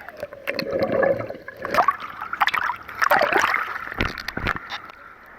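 Water sloshing and gurgling around a camera held at the water's surface, with irregular splashes and sharp knocks and a heavier thump about four seconds in.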